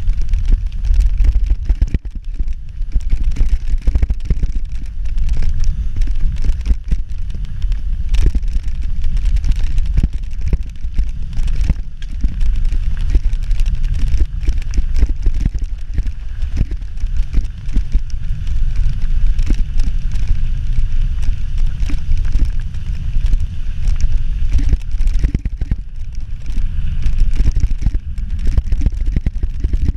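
Wind buffeting the microphone of a camera on a mountain bike riding fast downhill, with a steady crunch and rattle of tyres over a gravel track and many small clicks from stones and the bike's parts.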